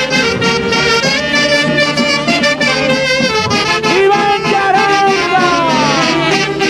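Live band music from a Peruvian orchestra, led by saxophones and brass over a steady rhythm. In the second half the horn lines slide down in pitch several times.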